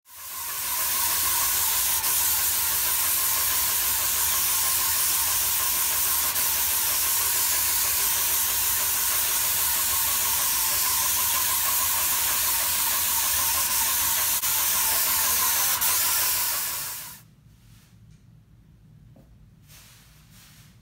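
Texture spray gun fed by a Graco RTX 2500 texture sprayer, spraying knockdown texture onto a ceiling: a loud, steady hiss of air and material over a low hum. It stops abruptly about seventeen seconds in.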